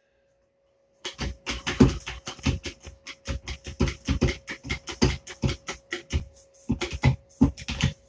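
Hand-pumped hydraulic crimping tool being pumped, its handle strokes making a rapid run of clicks and clacks, about three or four a second, starting about a second in, as the dies close down on a copper battery-cable lug.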